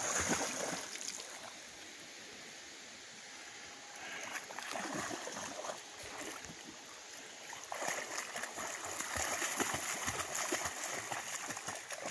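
A Rottweiler splashing through a shallow river, water spraying and slapping as it bounds and wades. The splashing comes in bursts: at the start, around four to five seconds in, and again from about eight seconds on.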